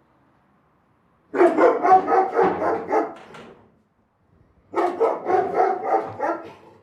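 A big dog barking in two quick runs of barks, the second run starting about a second after the first dies away.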